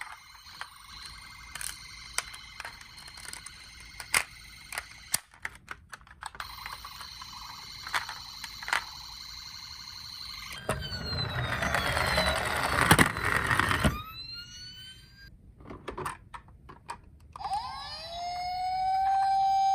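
Electronic sirens of toy police cars. First comes a steady electronic tone dotted with sharp clicks. About ten seconds in, a loud rolling rumble runs for about three seconds while the tone falls away. Near the end, a siren winds up and holds a steady pitch.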